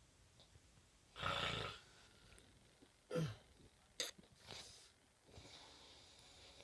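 Snoring: one loud snore about a second in lasting about half a second, then a shorter sound falling in pitch about three seconds in, followed by fainter breathing.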